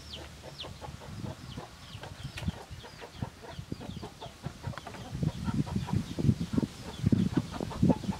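Chickens clucking, with a run of short high peeping chirps, about three a second, through the first half. From about five seconds in, louder low knocks and thuds come in and are the loudest sounds.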